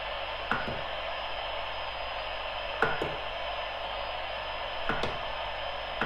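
DCT QRP SSB/CW transceiver's receiver hiss: a steady rush of band noise from its speaker while tuned across the 40-metre band, with a few short clicks.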